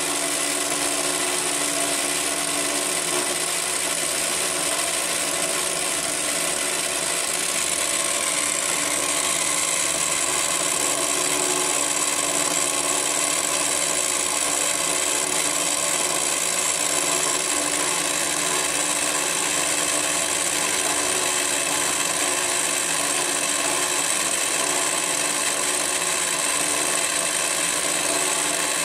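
A Parkside direct-drive pillar drill, converted into a mill, running steadily while its end mill cuts along the edge of a metal block, fed on an XY cross-slide table. This is an edge-cleaning pass, and the cut is a bit chattery.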